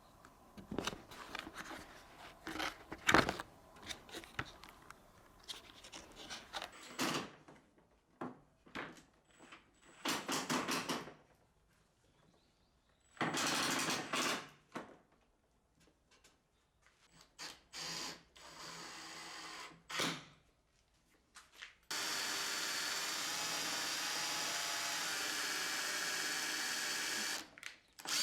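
Power drill running in short bursts and then in one steady run of about five seconds near the end. Knocks and clatter of wood being handled come in the first few seconds.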